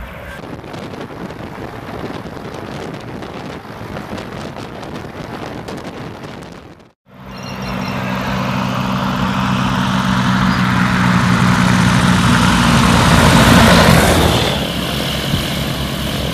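Ultralight plane's engine and propeller, first faint and distant, then after a cut running strongly and growing louder to a peak about two-thirds of the way in before easing off, as the plane comes in low and taxis.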